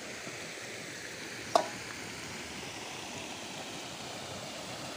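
River water running steadily over a shallow bed, a continuous rushing sound, with one short click about one and a half seconds in.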